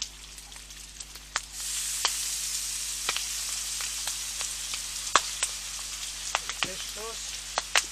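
Pork strips frying in a hot pan with a steady sizzle that grows louder about a second and a half in, with scattered sharp pops and ticks.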